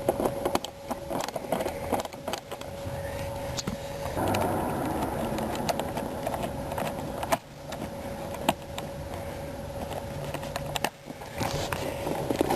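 Screwdriver backing out a small screw on a car's rear-seat fitting: irregular clicks, taps and scraping of the tool and metal, with a steady faint hum underneath.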